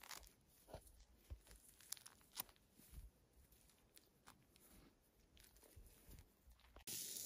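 Faint tearing and ticking of feathers being plucked by hand from a quail. Near the end it cuts abruptly to a louder steady sizzle of meat on a grill.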